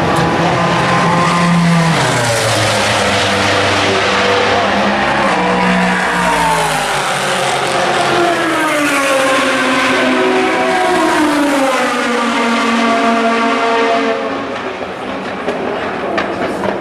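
Le Mans prototype race car engines at racing speed. The pitch repeatedly climbs and drops through the gears as the cars brake into and power out of a corner, easing off near the end.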